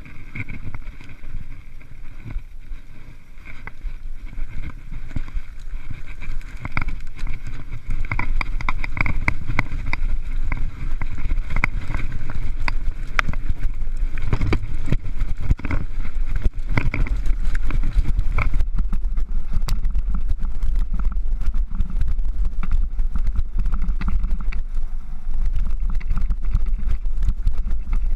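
Mountain bike riding fast down a rocky, gravelly trail: the bike rattles and clatters in quick, irregular clicks as the tyres hit stones, over a steady rumble of wind on the microphone. About two thirds through, the wind rumble gets heavier and the rattling denser.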